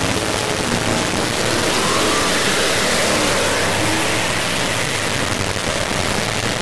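A steady, loud rushing noise, with a few faint short tones showing through it.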